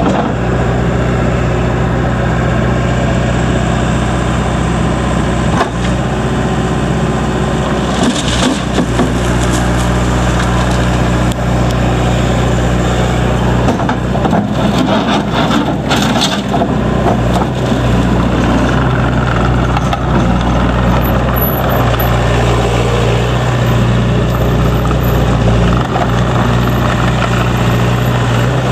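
Perkins diesel engine of a 2002 JCB 190 skid steer loader running steadily, with brief clattering about eight seconds in and again around fifteen to sixteen seconds in.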